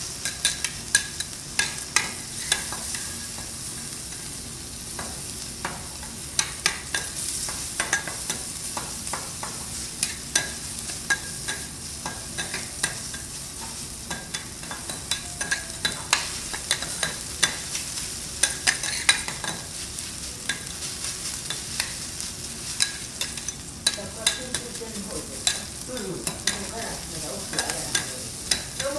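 Diced beef and fried rice sizzling on a steel teppanyaki griddle, with metal spatulas clicking and scraping against the plate in frequent sharp, irregular taps.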